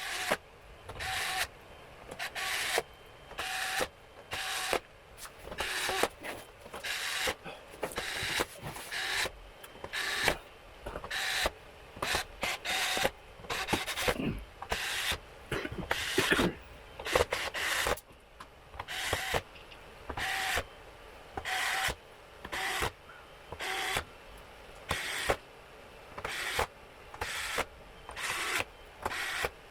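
A small mechanism whirring in short bursts, about one a second, with a faint steady tone in some of them.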